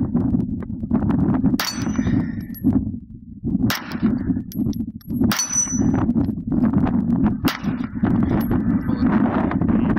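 About four 9mm pistol shots, roughly two seconds apart, with the steel plates of a dueling tree and spinner target ringing after hits, over a steady low rumble.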